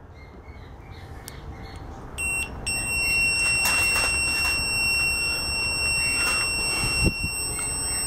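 Fluke 87 digital multimeter's continuity beeper sounding a steady high-pitched tone. It starts about two seconds in, breaks off for a moment, then holds: the newly soldered thermal fuse conducts and has survived the soldering heat. A few light clicks and a knock from handling the clipped test leads.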